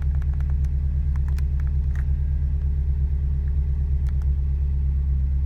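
Subaru WRX's turbocharged flat-four boxer engine idling steadily, with a few faint clicks. The idle sounds even with no chug, although the ECU has logged misfires on cylinders 1, 3 and 4.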